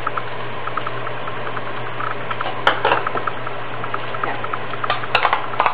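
Steady hiss with a low hum, under light clinks and scrapes of a metal spoon in bowls and pans of batter, with a few louder knocks near the middle and near the end.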